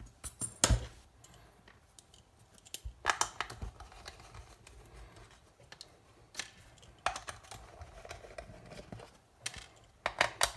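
Scattered clicks, taps and light scrapes from hand work with tools and small parts at a workbench.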